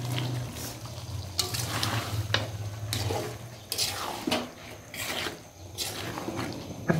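Boiled flat-bean seeds tumbling into thick rohu fish curry in an aluminium pan, then stirred in with a metal spoon: wet, sticky mixing with irregular scrapes and clicks of the spoon against the pan. A low steady hum runs under the first three seconds.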